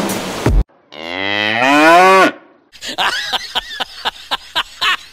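A cow mooing: one long call, rising and then falling in pitch. About half a second after it ends comes a quick run of short, sharp sounds.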